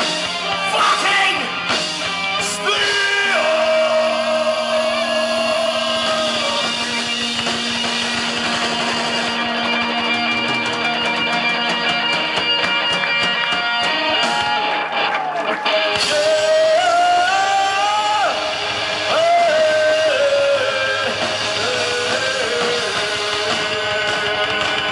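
Heavy metal band playing live through a PA in a marquee: electric guitars, bass, drums and a singer. The low end drops away for about two seconds midway, then the full band comes back in.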